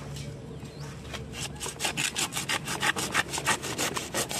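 A blade sawing back and forth through the dense, fibrous root ball of a prayer plant, dividing the clump. It rasps in quick strokes, about four a second, starting a little over a second in.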